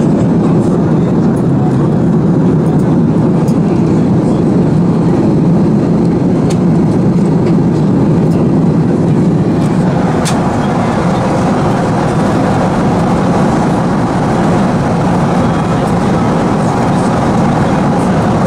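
Steady cabin noise inside an Airbus A340-300 airliner in flight at about 800 km/h: the drone of airflow and engines, heaviest low down. About ten seconds in the noise turns slightly brighter.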